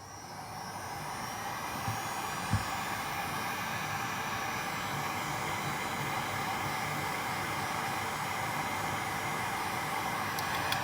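A hot-air blower runs steadily, warming the glue under a replacement phone camera lens glass. It builds up over the first couple of seconds and cuts off right at the end.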